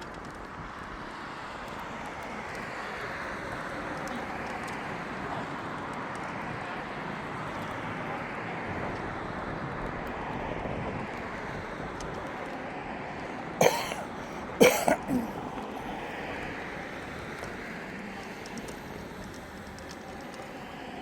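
Vehicles driving past on asphalt, mostly tyre noise swelling and fading as each one passes. About two-thirds of the way in there are two short, loud, sharp sounds about a second apart.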